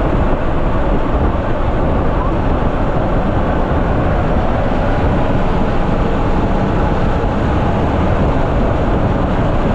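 Steady, loud rush of wind and twin turboprop engine noise through the open jump door of a C-147A (Dornier 328) aircraft in flight.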